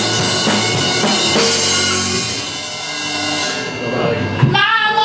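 A band with drum kit, bass, electric guitar and saxophones plays the last bars of a song and stops about two seconds in, leaving a cymbal and chord ringing out. A voice calls out near the end.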